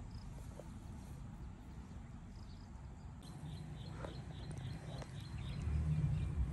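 Outdoor ambience by the water: a steady low rumble that grows louder near the end, with a quick run of short high chirps about halfway through.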